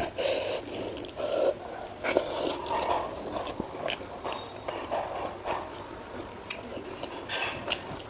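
Close-miked eating: a person biting and chewing food, with irregular wet mouth clicks and smacks.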